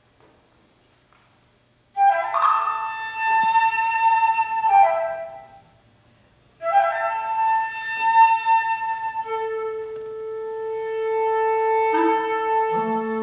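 Contemporary chamber music with a flute playing. After a silent opening of about two seconds, a flute phrase begins, fades away, and then resumes with long held notes. A lower sustained wind note enters under it partway through, and another low note enters near the end.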